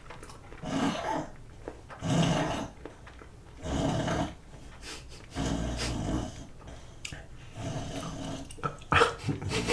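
A sleeping dog dreaming: muffled woofs and growly huffs in separate bursts every second or two.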